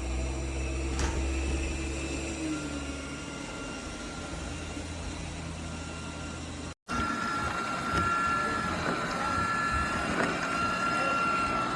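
BPMIO robot vacuum running: a steady motor hum and whine. The sound cuts out sharply about seven seconds in and comes back as a higher, steady whine.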